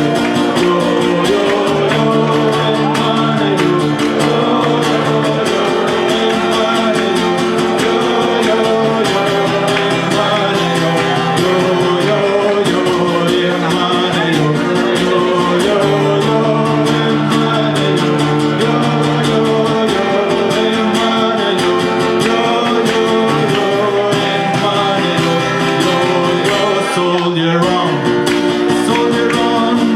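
Live acoustic guitar music, sustained chords changing every second or two, with some singing.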